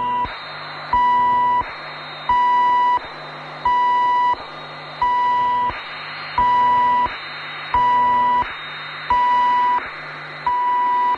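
Repeating electronic beep: a steady high tone about two-thirds of a second long, sounding roughly every 1.4 seconds, with hiss filling the gaps between beeps.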